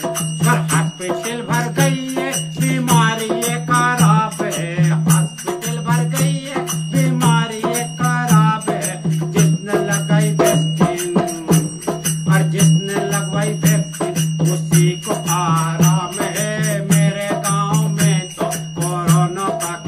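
A man singing a village folk song, accompanied by a dholak drum and jingling jhanjh hand cymbals keeping a steady beat, over a steady low drone.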